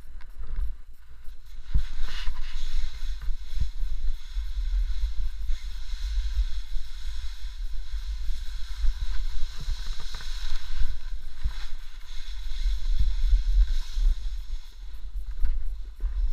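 Wind buffeting the microphone of a helmet-mounted camera with a steady low rumble, over the hiss of a snowboard sliding and carving through snow, which swells a couple of seconds in and again midway.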